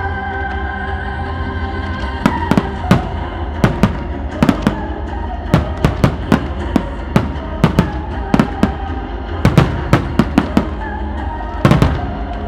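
Aerial firework shells bursting in quick, irregular succession, at times several a second, with the heaviest clusters in the second half. Music plays along with the show underneath.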